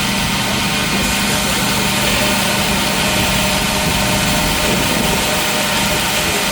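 Forge equipment running steadily: a constant roar and hiss with a low hum and several steady tones, unchanging throughout.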